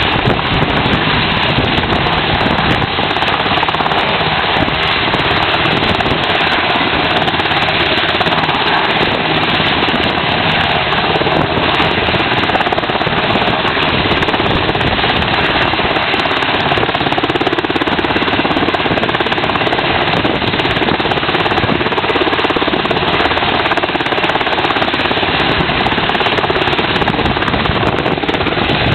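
UH-60 Black Hawk helicopter hovering low for a sling-load hookup. Its rotors and twin turboshaft engines make a loud, steady din that never lets up.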